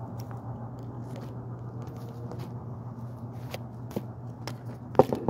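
Steady low hum of a running shop machine with scattered light clicks of parts being handled, then two sharp knocks close together near the end.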